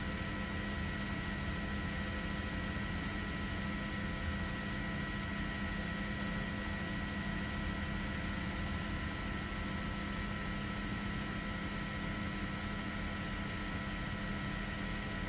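Steady hum and hiss with a few fixed high-pitched tones, without any change or sudden event.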